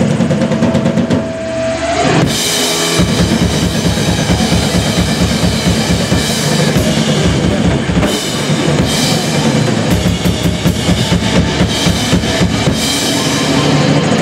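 Live rock band playing: electric guitar and bass with a busy drum kit of kick, snare and cymbals. After a short held opening, the full band comes in hard about two seconds in.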